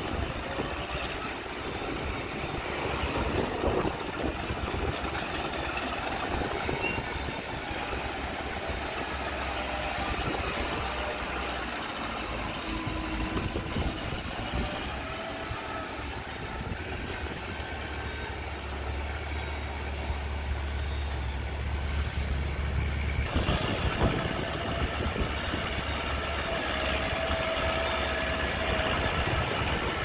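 Small crawler bulldozer's diesel engine running steadily as the dozer pushes soil. Its low rumble is heaviest a little past the middle, and the sound turns brighter and slightly louder about three quarters of the way through.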